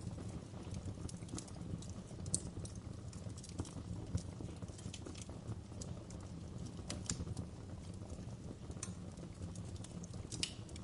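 Wood fire crackling in a fireplace: a steady low rumble of flames with irregular sharp pops and snaps of burning logs, a few louder pops scattered through.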